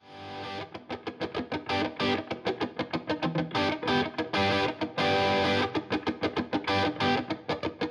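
Intro music: a quick, rhythmic guitar riff, fading in at the start.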